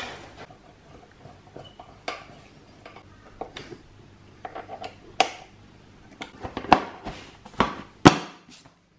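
Scattered clicks and clunks of a Yamaha Tenere 700's rider seat being fitted: plastic and metal knocking as the seat is set onto its mounts and pressed into place, with the loudest knocks near the end.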